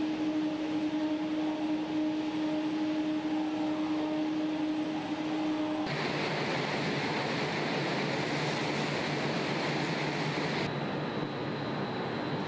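Car assembly-line machinery: a steady electrical hum with a clear pitched tone. About six seconds in it changes abruptly to a louder, even rushing noise of plant equipment with a low drone under it.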